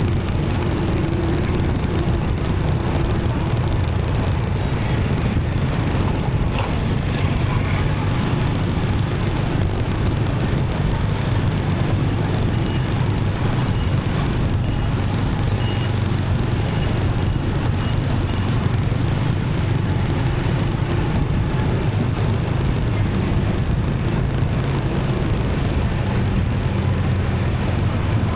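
Steady city traffic noise heard from a moving motorbike: a continuous low engine and road rumble with the sound of surrounding vehicles.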